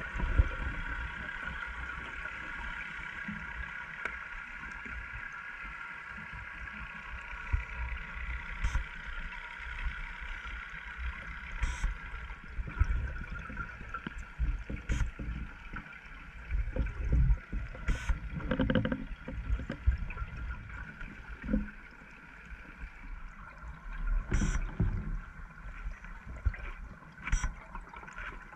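Sound heard underwater on a scuba dive: a diver's exhaled bubbles rumbling and gurgling in irregular bursts, over a steady droning hum.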